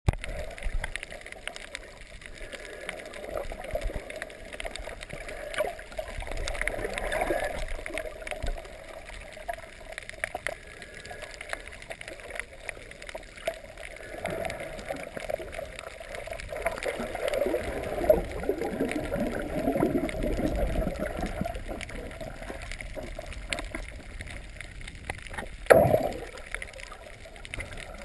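Muffled underwater sound through a GoPro's waterproof housing: water gurgling and sloshing around the camera, with scattered small clicks and one sharp knock near the end.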